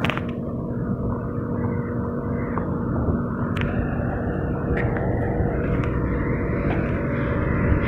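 A steady low mechanical drone, with a faint steady hum in the first half and a few light clicks.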